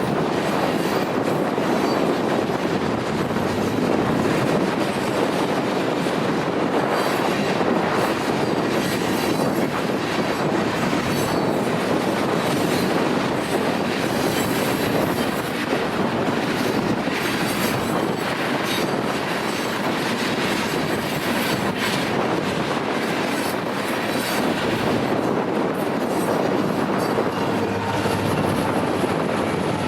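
Freight train cars rolling past on the rails: a steady, unbroken noise of steel wheels on track.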